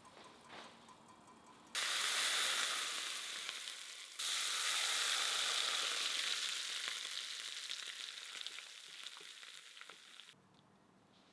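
Hot rapeseed oil, at about 180 °C, poured over chopped chilies and spices in a bowl, sizzling loudly. The sizzle starts suddenly about two seconds in, surges again about four seconds in, then slowly dies down and cuts off near the end.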